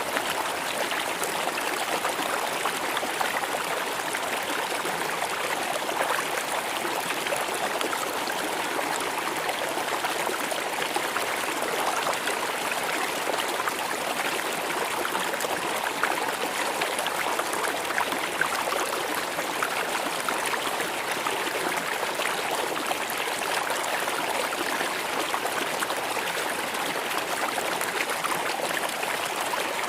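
River water flowing over rocks: a steady rushing and babbling of a shallow stream.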